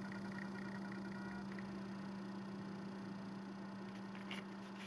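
Quiet room tone: a steady low electrical hum under light hiss, with a single faint click about four seconds in.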